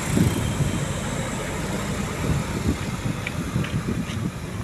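Tour bus engine running with a steady low rumble.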